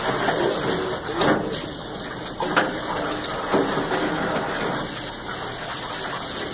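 Water running steadily from an open overhead pipe and splashing, with a few brief louder knocks.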